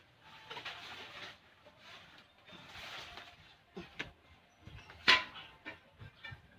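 Plastic pipe fittings being twisted and worked together by hand: scraping and rubbing, then a few sharp clicks, the loudest about five seconds in.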